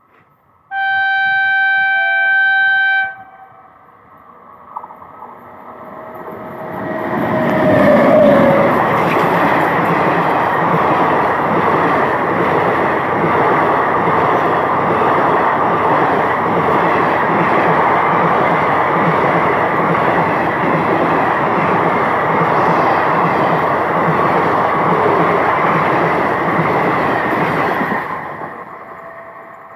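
WAP-7 electric locomotive sounding its horn once for about two and a half seconds, a warning on approaching a level crossing. Then the train with its ICF coaches passes at high speed: the rush of wheels on rails builds over a few seconds, holds steady for about twenty seconds and fades near the end.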